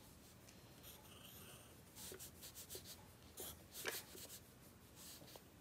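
Pencil scratching on notebook paper as a child writes a number, a few faint short strokes starting about two seconds in.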